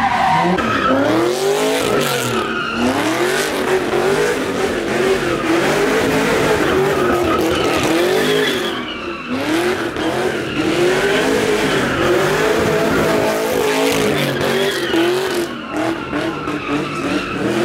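A car doing a burnout: the engine revs up and down in repeated swells every second or two while the tyres squeal and skid.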